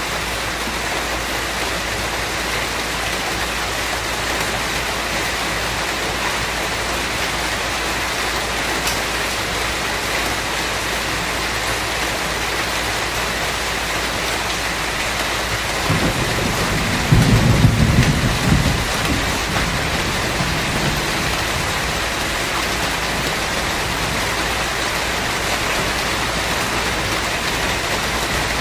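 Steady rain falling, with a rumble of thunder a bit past halfway that swells for a couple of seconds and then dies away under the rain.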